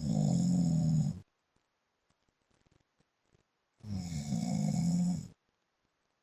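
A man snoring in his sleep: a snore ending about a second in, then another starting about four seconds in and lasting about a second and a half, with quiet between.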